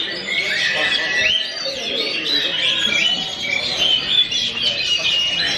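Several caged oriental magpie-robins (kacer) singing at once in a contest, a dense tangle of overlapping whistles, trills and chirps.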